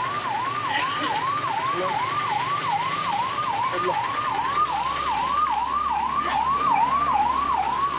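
Electronic siren in a fast yelp, its pitch sweeping up and down about two and a half times a second, held at a steady level throughout.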